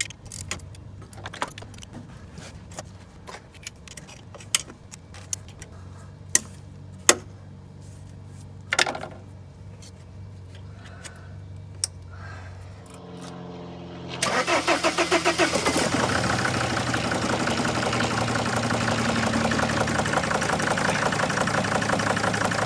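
Scattered sharp clicks and knocks of hand tools, then the 2002 Sprinter's Mercedes OM612 five-cylinder diesel cranks and starts about 14 seconds in and settles into a rough idle that the new EGR valve has not cured.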